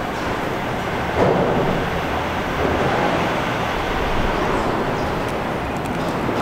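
R42 New York City subway cars at an elevated platform: a steady train noise, with a louder surge about a second in.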